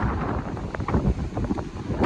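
Strong wind buffeting the microphone: a gusty, uneven rumble that rises and falls.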